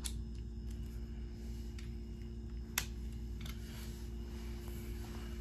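A few faint, sharp clicks of a screw being fitted onto a cordless drill's bit by hand, the loudest a single click about three seconds in, over a steady low hum.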